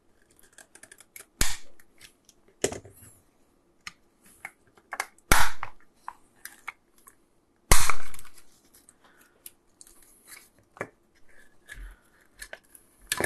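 Plastic case of a 9-volt wall transformer being pried apart with a screwdriver along a cut seam: small clicks and scraping, with four sharp cracks as the plastic gives, at about one and a half, three, five and a half and eight seconds in.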